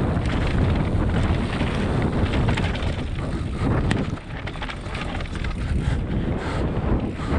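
Wind buffeting an action camera's microphone as a mountain bike descends a dirt trail, over a low rumble of tyres on the ground and scattered clicks and knocks of the bike rattling over bumps and roots. The noise eases briefly about four seconds in.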